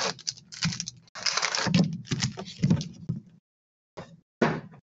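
Foil trading-card packs being pulled out of a cardboard hobby box and set down in stacks on a table: rustling, sliding and light knocks in quick succession. They pause about three and a half seconds in, then two more short rustles follow.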